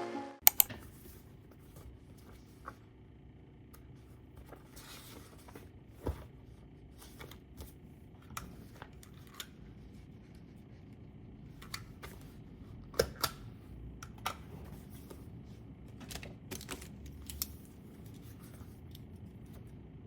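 Quiet room with scattered small handling sounds: sharp clicks and taps, the loudest a cluster about thirteen seconds in, and a few soft rustles between them.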